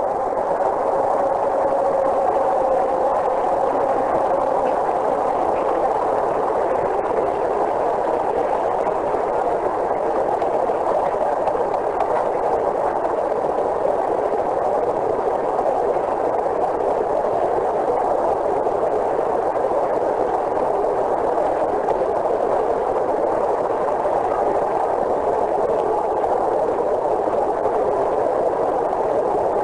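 A steady, even noise with no clear tones or rhythm.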